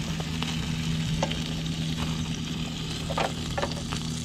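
Hamburger patties and green chilies sizzling on a portable propane grill over a steady low hum. A few short clicks and scrapes come from a spatula and fork against the grill grate.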